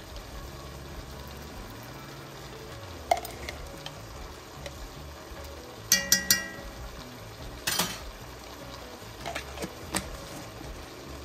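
Soup cooking in a Dutch oven with a steady low sizzle, while a metal spoon stirs it and clinks against the pot several times, loudest about six seconds in.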